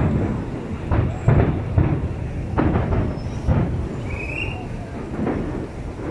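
Aerial firework shells bursting in a rapid, irregular string of deep booms, each rumbling out into the next.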